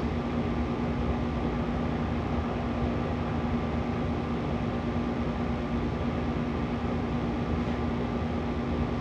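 Steady background hum and hiss with a constant low tone, unchanging throughout: room or recording noise with no speech.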